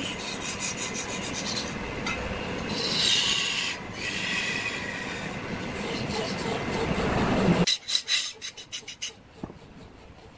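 Hand-held perforated sheet-metal rasp scraping a large wooden workpiece turning on a lathe: a steady rasping. About three-quarters of the way through it stops abruptly, leaving a run of fainter quick ticks.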